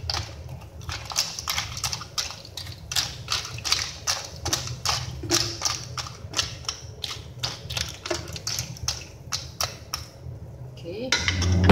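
Clam shells clicking and clattering against each other and the pan as they are stirred with a wooden spatula in boiling liquid, about three clicks a second.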